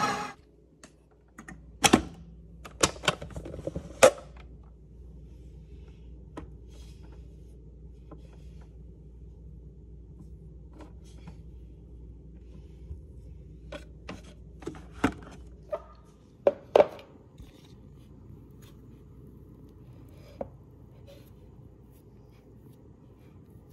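Ninja kitchen system's food processor motor cutting off just as it begins, then a string of sharp plastic clicks and knocks as the bowl and lid are handled and the kneaded dough is pulled off the dough blade, over a faint steady hum.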